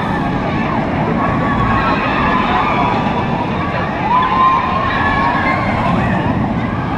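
OzIris, a B&M inverted roller coaster, with its train running over the track and riders giving high, wavering screams that rise and fall, loudest about four seconds in.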